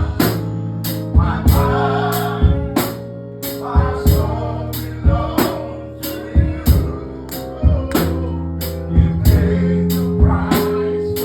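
Live gospel music: sustained chords, a steady beat of bright percussion hits about twice a second, and voices singing in short phrases.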